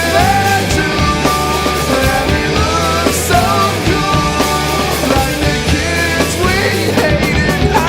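Studio recording of a 1990s emo rock band playing loud and continuous: electric guitars, bass and drums.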